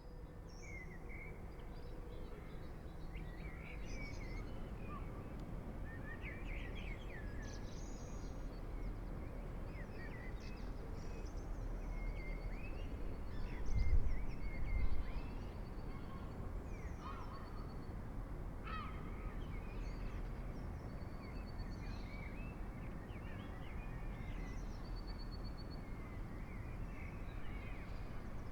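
Many birds chirping, calling and trilling over a steady low background hum of the city, with a short low rumble about halfway through.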